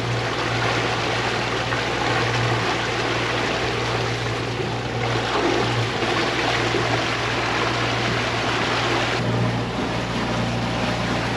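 Beneteau 45 sailboat motor sailing: its inboard diesel engine runs with a steady low hum, under a continuous rush of water along the hull.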